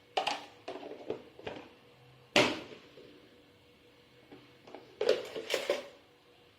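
Kitchen utensils and dishware clattering: a few light knocks at the start, one loud clack about two and a half seconds in, and a quick cluster of knocks near the end.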